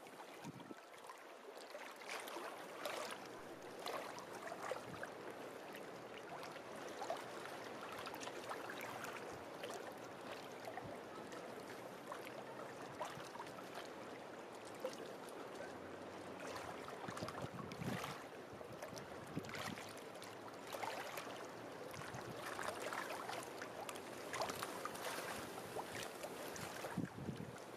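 Small waves lapping at a lakeshore: a steady wash of water with many small irregular splashes and clicks.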